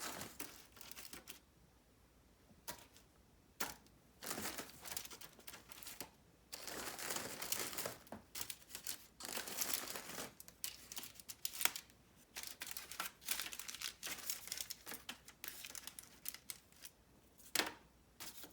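Crackers being pressed tightly into a foil-lined baking sheet: irregular crinkling rustles of foil and packaging with small sharp clicks of crackers knocking together.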